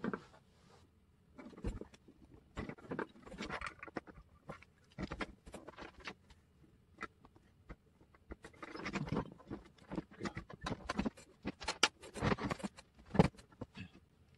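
Small parts of a 1:32 scale RC truck being handled and taken apart by hand: irregular light clicks, taps and scrapes, busiest in the second half, with one sharper click near the end.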